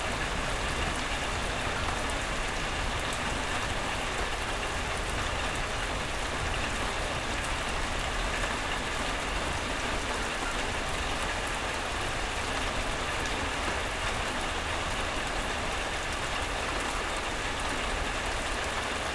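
Steady rain, an even unbroken hiss with a low rumble underneath.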